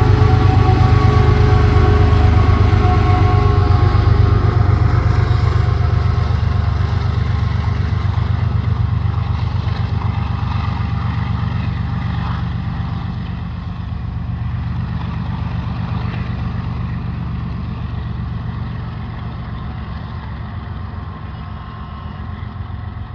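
Diesel engine of a CSX freight train's rear distributed-power (DPU) locomotive passing and moving away, a deep steady drone that slowly fades.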